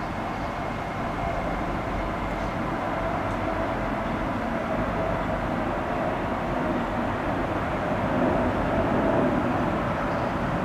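Construction machinery running steadily: a continuous engine drone with a few faint steady tones over it, swelling a little near the end.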